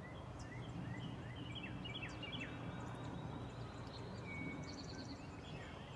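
Small songbirds chirping and singing: a run of short rising chirps in the first half, then a brief high trill near the end, over a steady low background rumble.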